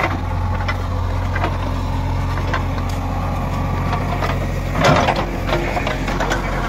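JCB 3DX Eco backhoe loader's diesel engine running steadily while the backhoe bucket scrapes and drags loose soil and stones, with scattered knocks and a louder scrape about five seconds in.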